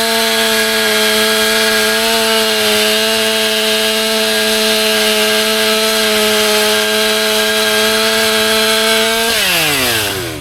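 Stihl MS400 two-stroke chainsaw running at full throttle with a steady high engine note while cutting a log. About nine seconds in, the throttle is released and the revs fall to idle.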